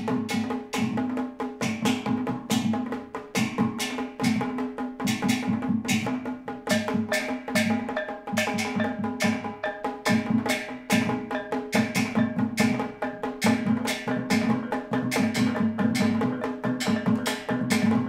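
Kulintang ensemble playing: a row of eight small tuned gong-kettles struck with two wooden beaters in a fast, ringing melody. Under it, a goblet drum (dabakan) and hanging bossed gongs beat a steady rhythm.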